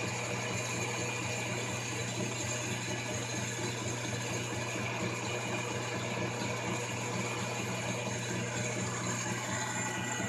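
Metal lathe running steadily while a small brass spinning top is turned and grooved. It gives a constant low hum with several steady higher tones above it.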